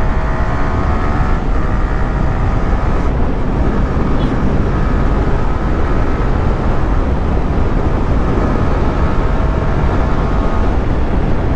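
Yamaha R15 V3's 155 cc single-cylinder engine running at highway speed and picking up speed, its faint note buried under heavy wind rush on the microphone.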